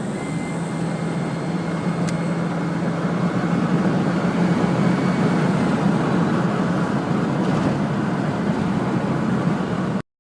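Toyota Prado's 1KD four-cylinder turbo-diesel running and gradually building, with a high turbo whistle over the engine note. The whistle comes from compressor vanes bent by a piece of rubber drawn into the intake. The sound cuts off abruptly near the end.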